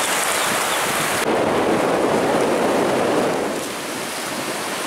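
Surf washing in over the shallows, a steady rush of water. It changes abruptly about a second in, then swells for a couple of seconds and eases off.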